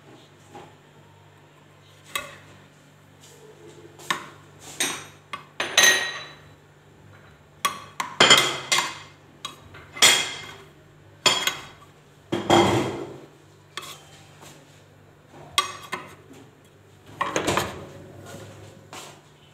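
Metal spoon scraping and clinking against a small steel saucepan as butter is worked into starch, in irregular strokes, a few of them ringing briefly.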